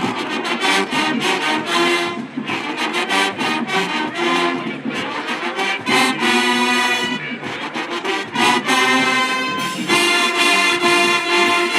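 High school marching band playing an upbeat tune from the stands: loud brass chords, with sousaphones underneath, over a steady drum beat.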